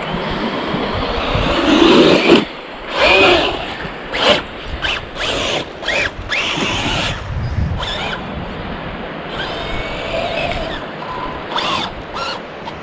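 Corally Asuga 6S RC buggy's brushless motor whining in short throttle bursts, its pitch rising and falling with each blip, loudest about two to three seconds in.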